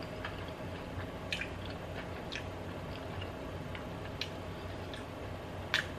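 A person chewing a mouthful of chicken sausage with cottage cheese and mustard, making soft, wet mouth clicks at irregular intervals about once a second.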